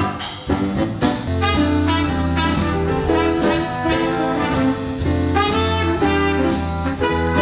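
Small live jazz band playing an upbeat tune, horns over piano, bass and drums, with a low bass line coming in about a second in.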